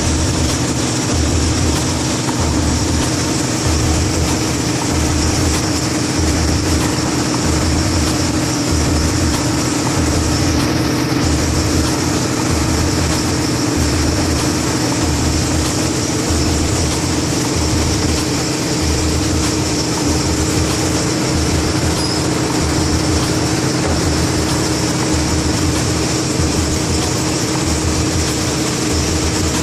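Ferry boat's engine running steadily: a constant hum over broad noise, with a low throb pulsing about once a second.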